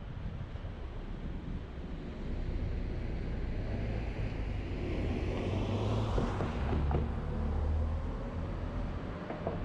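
Road and wind rumble of a car driving, with another vehicle passing close by: a rushing sound that swells to its loudest about six seconds in, then fades.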